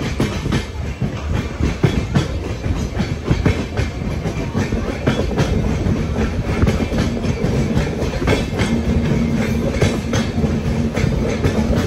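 Passenger train coach running along the track: a steady low rumble with irregular sharp clicks of the wheels over rail joints. A steady hum joins about eight and a half seconds in.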